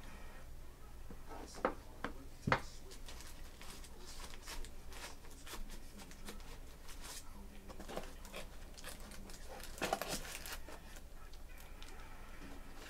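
Trading cards being handled and sorted: scattered light clicks and taps of card against card, a few sharper ones near the start and a cluster about ten seconds in, over a low steady hum.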